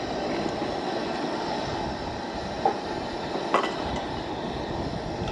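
Canned corn tipped from its can into a skillet of chicken on a propane camp stove, with two light clicks about midway through, over a steady low rushing noise.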